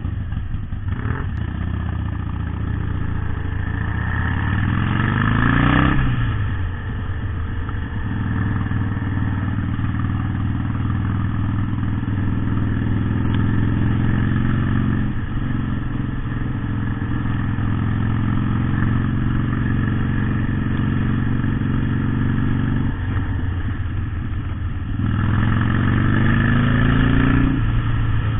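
Motorcycle engine pulling away and accelerating, its pitch rising for a few seconds, then falling sharply at an upshift about six seconds in. It then runs steadily at cruising speed, and near the end rises again and drops at another gear change.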